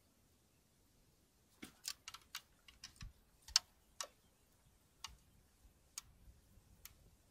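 Irregular sharp clicks and taps from handling fishing tackle (rods and a spinning reel): a quick cluster starting about a second and a half in, then single clicks spaced about a second apart.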